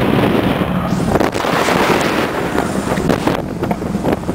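Cruiser motorcycle engine running while the bike is ridden, with wind rushing and buffeting over the microphone.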